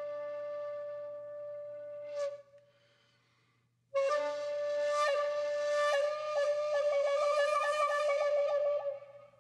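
Background music: a solo flute-like wind instrument holds one long note that stops about two seconds in. After a short pause it takes up the same pitch again, wavering quickly in a trill near the end.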